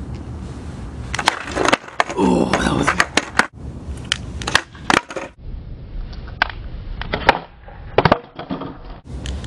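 Skateboard wheels rolling on a concrete sidewalk, with many irregular sharp clacks and knocks from the board.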